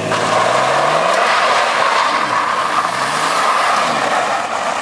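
GMC Syclone's turbocharged V6 revving hard, its pitch rising and falling several times, under a loud tire-scrubbing squeal as the all-wheel-drive truck spins in a donut.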